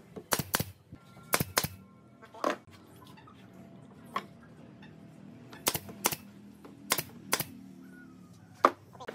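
Pneumatic nail gun firing nails into the wooden slats of a chair backrest: about a dozen sharp shots, mostly in quick pairs.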